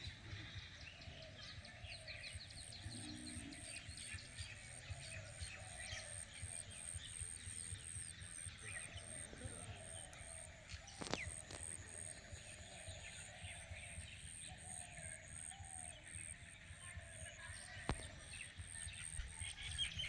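Quiet riverside outdoor ambience: birds chirping and calling, over an even, rapid high-pitched pulsing. There is a sharp click about halfway through and another near the end.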